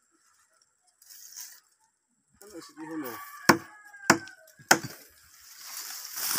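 Three sharp machete chops into wood, about half a second apart, with a rooster crowing in the background.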